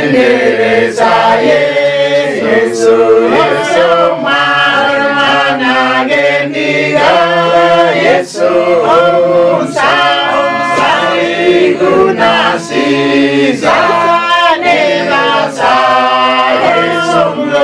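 A congregation of men and women singing a praise song together.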